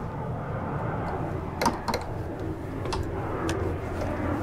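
A few sharp clicks and knocks over a steady low background rumble. The loudest comes as a pair about a second and a half in, and fainter single clicks follow later.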